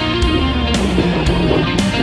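Background music: a guitar-led track over a steady beat of about two hits a second.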